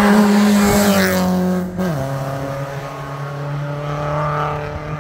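A BMW 3 Series rally car's engine at high revs as it comes up and passes close by. Its note drops sharply about two seconds in as it goes by, then runs on lower and slowly fades.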